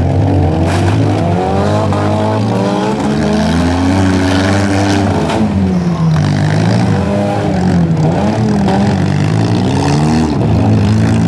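Several four-cylinder compact demolition-derby cars' engines revving at once, their pitch rising and falling, with two sharp knocks about a second in and again about five seconds in.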